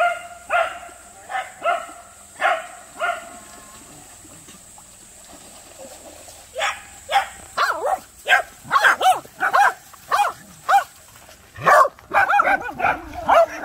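Corgis barking: about six short barks in the first three seconds, a pause, then faster barking from several dogs at once, overlapping, over the last seven seconds.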